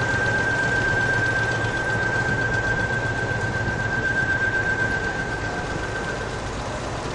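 Steady drone of coal-handling plant machinery with a constant high-pitched whine over a low hum. The whine fades out shortly before the end.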